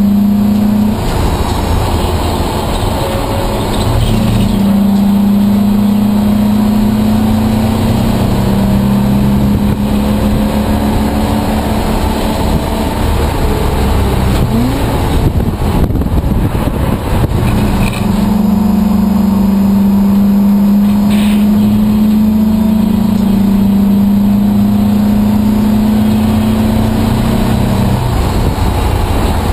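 Race car engine heard from inside the stripped cockpit, held at a steady high note under throttle. Around the middle the note drops away for a few seconds into rougher engine and road noise, lifting off for a corner, then the steady note comes back.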